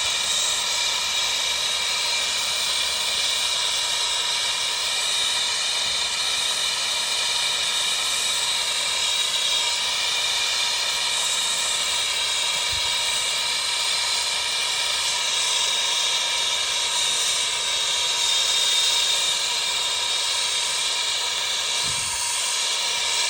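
Steady hissing of a gas flame heating a relief valve that has not opened, even past 220 degrees: the plumber judges the valve a fail.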